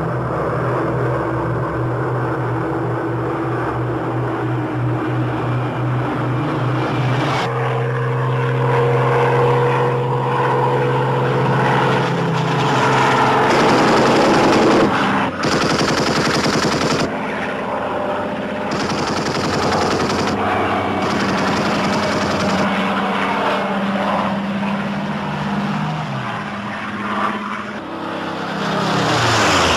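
Piston aero engines droning while machine guns fire in long rapid bursts, the sound of a WWII fighter dogfight. Near the end the engine pitch falls as an aircraft passes.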